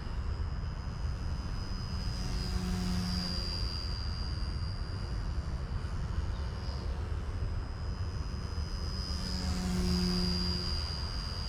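Small electric RC collective-pitch helicopter (Eachine E160) buzzing overhead: a steady high-pitched rotor and motor whine that grows louder twice as it passes close, over a constant low rumble.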